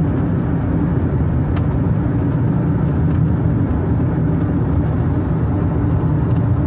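Steady road and engine noise inside a moving car's cabin, mostly low in pitch, as the car drives at an even speed.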